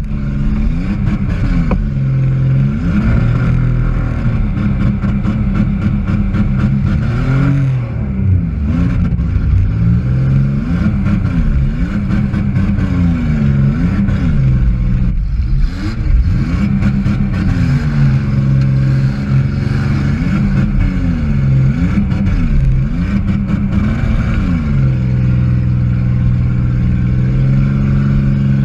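Demolition derby car's engine heard from inside the car, revving up and falling back again and again, loud throughout.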